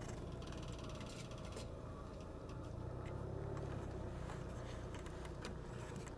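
HAL Dhruv helicopter running on the ground: a steady low rumble from its engines and rotor, with scattered light clicks.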